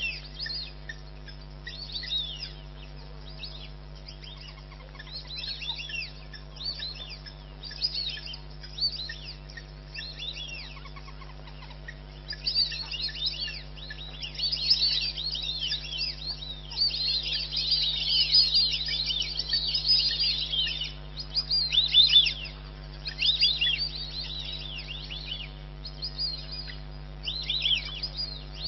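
Wild birds chirping and calling: many short, high, quickly falling notes, scattered at first, then a dense chorus through the middle before thinning again, over a steady low hum.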